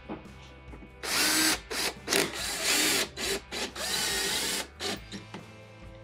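Cordless drill with a Torx T15 bit driving a screw into a dishwasher's door panel, run in a string of short spurts starting about a second in and stopping shortly before the end.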